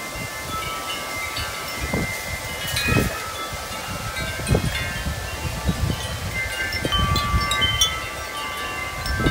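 Large tubular wind chimes ringing continuously, their tubes struck over and over by strong, gusty wind, with many overlapping tones. Wind gusts buffet the microphone, swelling about three seconds in and again near the end.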